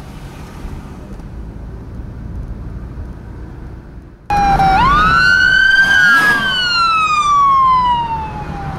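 Low, steady road and engine rumble from a moving car. About four seconds in, a loud emergency-vehicle siren cuts in suddenly, several siren tones overlapping as they sweep up and then fall slowly in pitch.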